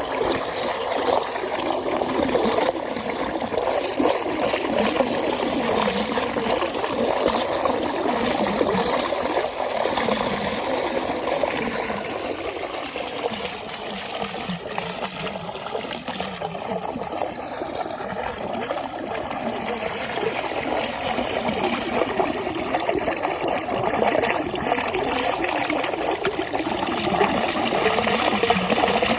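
A stream running and trickling steadily.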